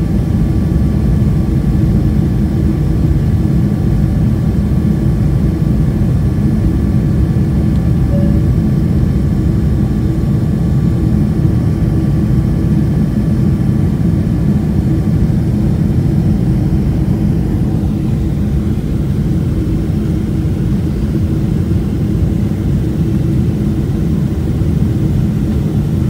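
Steady cabin noise of a four-engine Boeing 747 after takeoff, heard from a window seat over the wing: a loud, even, low rush of engine and airflow noise. Faint steady whines ride over it and fade out a little past halfway.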